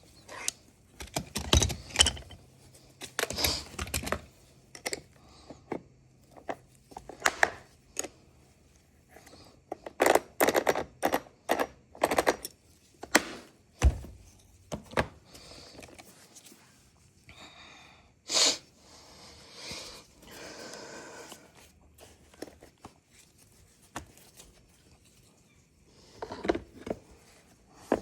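Irregular clicks, taps and knocks of hand tools and chainsaw parts being handled, with a short stretch of scraping a little past the middle.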